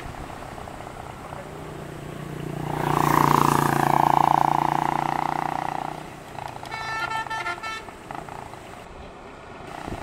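Vehicle horn sounding one long blast of about three seconds, followed by a shorter, fluttering horn sound.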